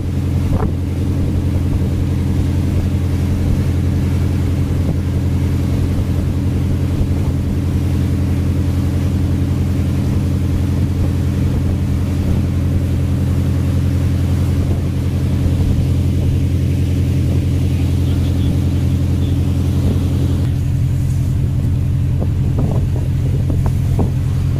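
Fishing vessel's engine running steadily at speed: a deep, even drone, with the rush of wind and water under it.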